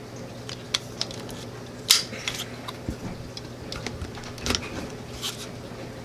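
Scattered light clicks and metal scrapes from a Sig Sauer P320 compact pistol being field-stripped, its slide worked and taken off the frame. The sharpest click comes about two seconds in.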